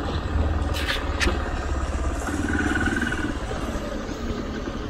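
Hero Xpulse 200 single-cylinder motorcycle engine running at low revs as the bike rolls slowly through a hairpin bend, with wind noise on the microphone. Two sharp clicks come about a second in.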